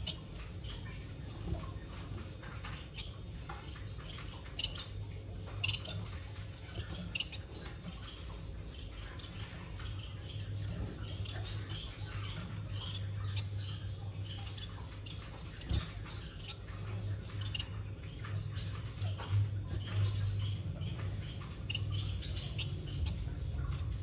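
Nestling chicks in a nest box giving thin, high-pitched peeps, many short chirps a second in irregular runs, over a steady low hum.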